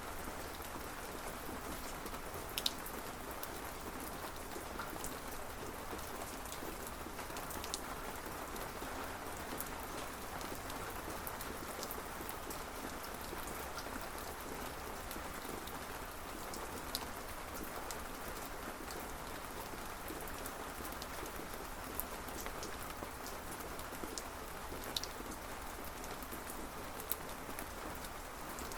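Steady rain falling, with now and then a louder single drop striking close by.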